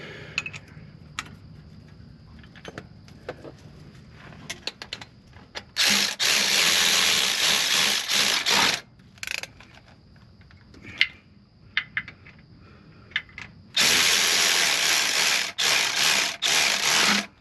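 A power tool, likely a ratchet, runs in two bursts of about three seconds each, about six and fourteen seconds in. Small clicks and knocks of hand tools on metal come between them.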